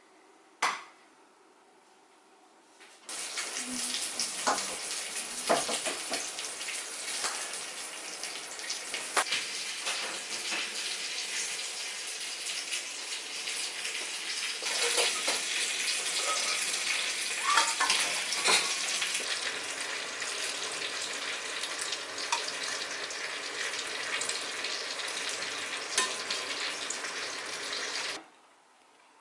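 A water tap running into a sink, with scattered clinks of dishes and utensils under the stream. It starts a few seconds in after a single knock, and cuts off suddenly about a second before the end.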